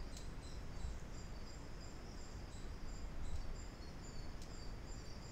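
Faint high-pitched chirping in the background, short notes repeating a few times a second, over a low steady hum.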